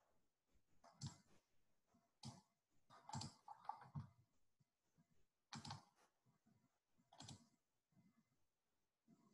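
A handful of faint, short clicks and taps, scattered irregularly, with near silence between them.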